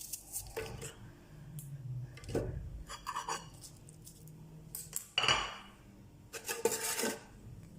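Scattered clinks and knocks of kitchen utensils and dishes, the loudest about five seconds in, as half a red onion is put into an electric blender jar.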